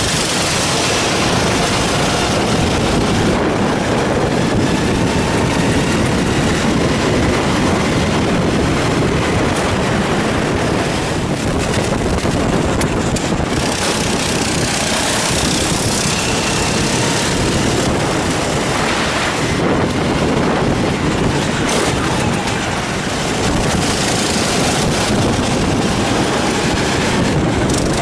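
Onboard sound of a Sodi rental kart at racing speed: its engine running hard, rising and falling in pitch through the corners, under a heavy rush of wind and road noise.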